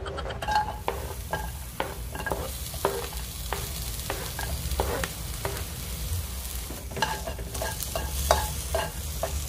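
Food sizzling in a non-stick pan with no oil, while a utensil stirs it, making frequent irregular clicks and knocks against the pan.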